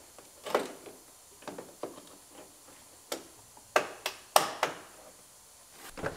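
Plastic push-in trim clips being popped and pulled out of a car's rocker molding: a string of irregular sharp clicks and snaps, the loudest two a little past the middle.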